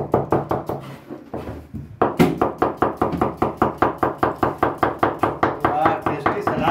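Kitchen knife slicing a cucumber against a plastic cutting board: a rapid, even tapping of about five strokes a second, getting quicker and louder about two seconds in.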